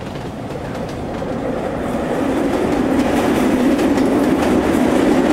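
A train rumbling across a steel bridge, its wheels clattering, growing steadily louder as it approaches.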